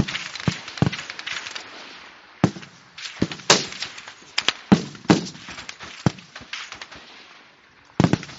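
Rifle shots from a firing line: a string of sharp, irregularly spaced cracks, some near and some farther off, the loudest about three and a half seconds in.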